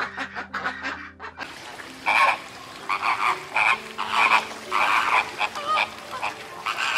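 A chicken clucking, then after a cut about a second and a half in, a different animal gives a series of short calls, roughly two or three a second.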